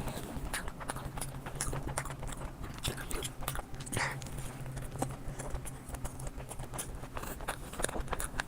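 Close-miked chewing of a cheeseburger: irregular wet mouth clicks and smacks, over a steady low hum.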